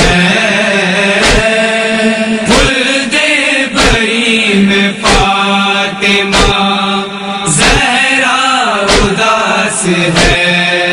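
Urdu noha (Shia lament) chanted by a voice in long held, wavering notes over a steady low drone, with a sharp beat about every second and a quarter.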